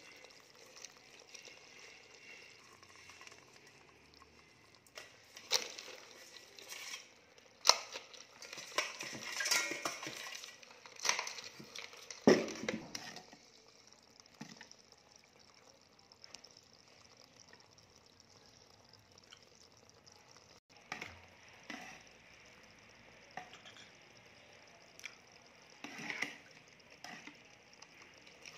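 A metal spoon stirring brine full of garlic cloves and chillies in a bowl, with a run of sharp clinks against the bowl in the first half and fewer, softer ones later, over a faint crackly splashing of the liquid.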